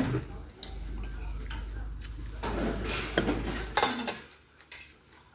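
Tableware clinking on a restaurant table: a few separate clicks and knocks of metal utensils and dishes. A low steady hum underneath cuts off about four seconds in.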